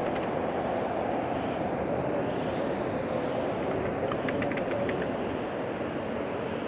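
Steady running noise of a moving vehicle, with a few faint clicks about halfway through.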